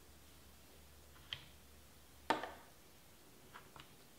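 A few faint, sharp clicks over quiet room tone, the loudest with a short ringing tail about two seconds in.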